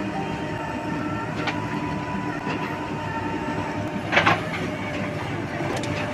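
Heavy diesel engine of the earthmoving machinery running steadily, with a short loud knock about four seconds in.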